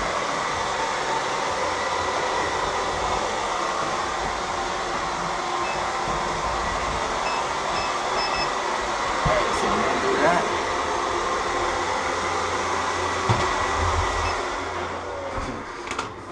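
Robot vacuum running steadily, its suction fan and brushes making an even whir with a few light knocks, as it passes over a stack of playing cards without picking them up. The whir fades away near the end.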